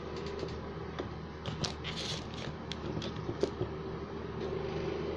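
Handling of a paper chopstick sleeve and disposable wooden chopsticks: scattered small clicks and a short papery rustle about two seconds in, over a steady room hum.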